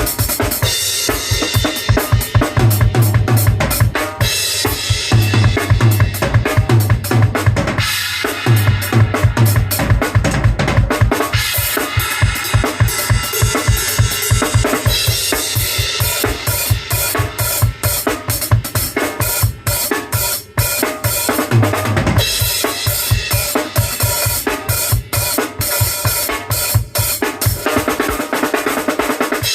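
Drum kit with Paiste cymbals played continuously: kick drum, snare and cymbals in a steady groove.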